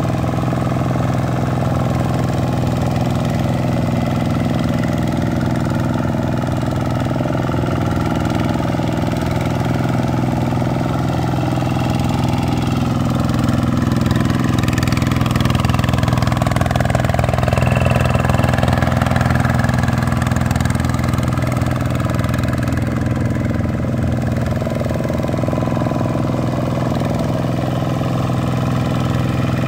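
Vikyno RV125-2 two-wheel tractor's single-cylinder diesel engine running steadily under load while its cage wheels puddle a flooded paddy field, growing a little louder around the middle as the tractor passes close.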